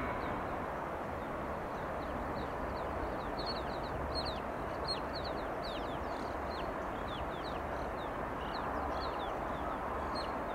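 Freight train rolling across a steel trestle bridge at a distance, a steady rumble of cars on the rails. Over it, from about three seconds in, comes a scatter of short, high, falling chirps.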